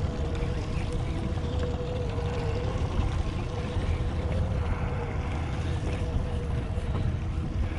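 Minn Kota electric trolling motor whining steadily on spot lock, its pitch wavering slightly, under a steady low rumble of wind on the microphone.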